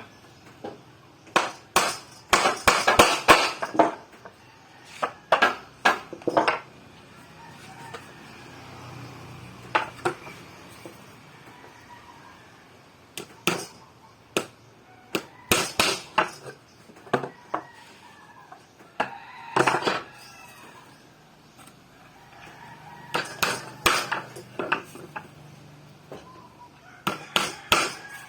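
Bursts of sharp knocking and clattering from wood and tools being handled and struck during carpentry work, in clusters of several quick strikes with pauses between. A rooster crows once about twenty seconds in.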